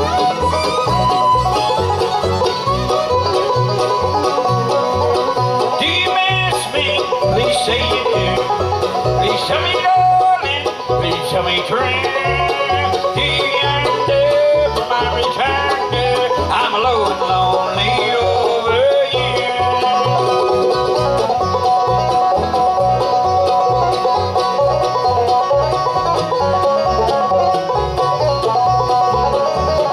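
Live bluegrass band playing: five-string banjo, fiddle, mandolin, acoustic guitar and upright bass, with the bass keeping a steady beat.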